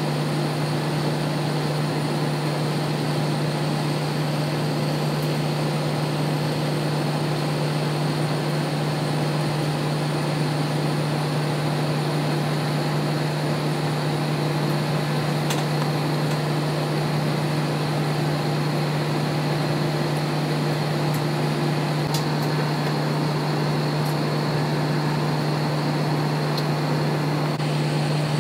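Steady cabin drone of an Airbus A320 on the ground, from its idling jet engines and air conditioning, with a strong constant low hum.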